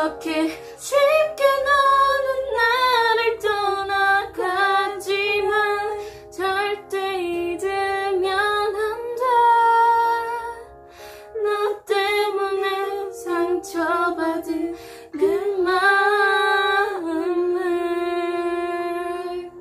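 Two female voices singing a Korean-language ballad in unison over a guitar instrumental backing track, the phrase ending on a long held note near the end.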